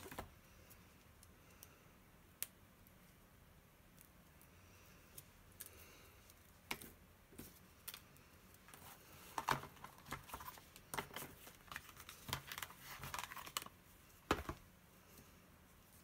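Faint, scattered clicks, taps and rustles of stamping supplies being handled on a tabletop: a red rubber stamp sheet and its plastic packaging. Sparse at first, busier after about nine seconds, with one sharper tap near the end.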